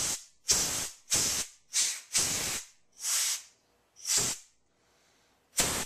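Short blasts of compressed air from an air nozzle, about eight hissing puffs of under half a second each, irregularly spaced, blowing through a lawn mower carburetor's body and jets to dry them and clear any blockage.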